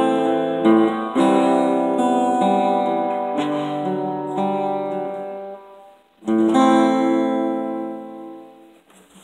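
Acoustic guitar chords strummed and left to ring, slowly fading. After a short silence about six seconds in, one final chord rings out and dies away, ending the song.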